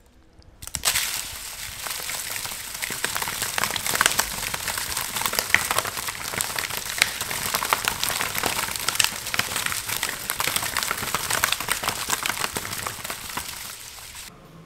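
Live eels thrashing in a plastic basin under a handful of coarse salt: a dense wet crackling and pattering of salt grains and slippery bodies slapping against the plastic, starting suddenly within the first second and dying down just before the end. The salt is being used to strip the eels' slime.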